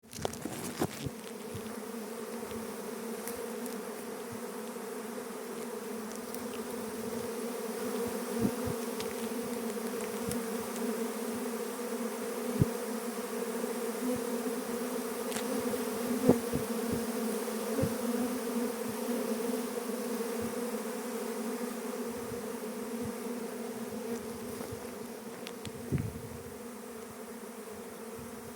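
A bee buzzing steadily on one low pitch, a little louder through the middle, with a few brief sharp ticks along the way.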